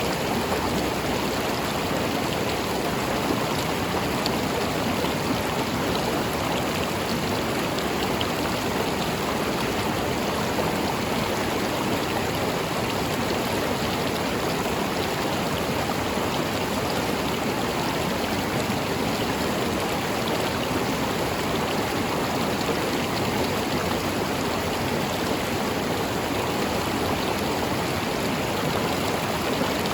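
River water flowing steadily, an even, unbroken rush.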